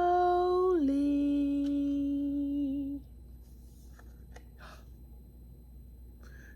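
A woman's voice holding a long, drawn-out hummed note, stepping down in pitch about a second in and stopping after about three seconds; then quiet but for a few faint clicks.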